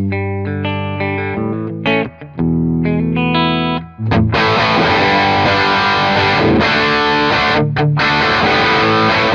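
Gibson Theodore electric guitar played through a MESA/Boogie Rectifier 1x12 speaker cabinet. Clean chords ring out for about four seconds, then the tone switches to a distorted crunch riff.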